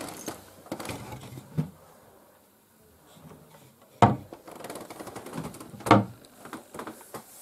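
Newly assembled wooden desk being handled at its cabinet: two sharp wooden knocks about two seconds apart, the first about four seconds in, with lighter handling clatter before and between.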